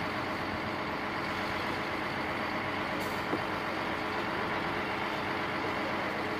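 A heavy truck engine running steadily, with an even, unchanging noise throughout.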